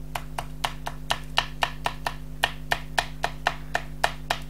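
Rapid, even clicking, about four or five clicks a second, as a small hand tool is rubbed back and forth over an acetate panel on card, pressing it down so that the adhesive holds.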